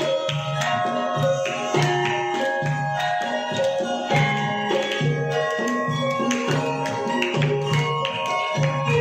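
Javanese gamelan music: metallophones ringing steady pitched notes over brisk, even hand-drum strokes from the kendang.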